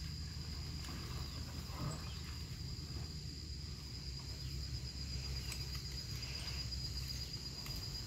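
Insect chorus: a steady, high-pitched trill that carries on unbroken, over a low steady rumble.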